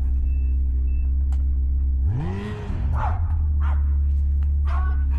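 Dogs barking: one deep bark about two seconds in, then several short high yips near the end. A steady low hum runs underneath.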